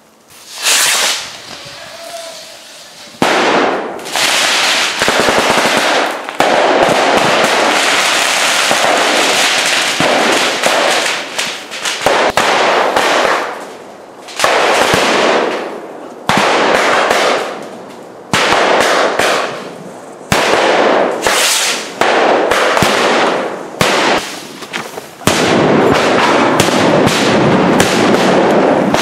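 Firecrackers and fireworks going off, one loud burst after another, each a second or two of dense crackling and banging that quickly fades. Near the end the bursts run together without a break.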